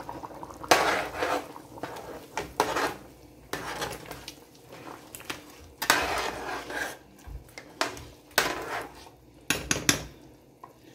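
A spoon and a metal ladle stirring a pot of stew, scraping and clanking against the pot's sides in irregular knocks throughout.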